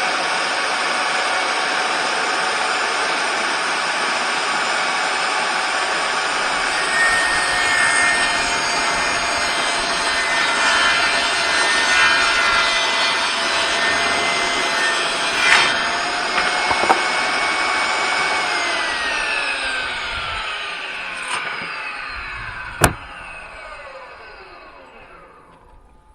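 Kobalt table saw running and cutting through 3/4-inch plywood. About 18 seconds in, the saw is switched off and its motor whine falls steadily in pitch and fades as the blade spins down. A single sharp click comes near the end.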